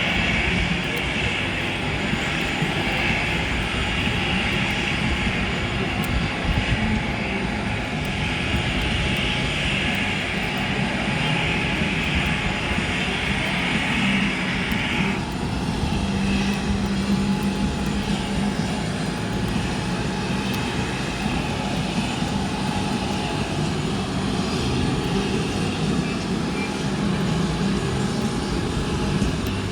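Steady noise of a C-5 Galaxy transport aircraft on the ground, with a low hum and a higher hiss that cuts off suddenly about halfway through.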